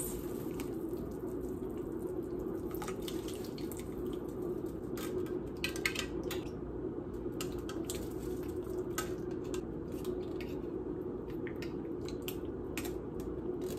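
Pot of soup bubbling steadily on the stove, with scattered light clicks and plops as a metal spoon scoops olives from tin cans and drops them into the pot.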